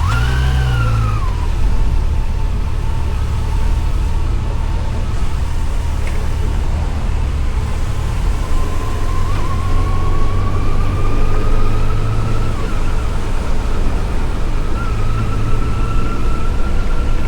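Yamaha FJR1300's inline-four engine running under way, with wind and road noise. A whine rises and falls with the revs: a quick rise and drop at the start, a slow climb that breaks off about twelve seconds in, then a climb again near the end.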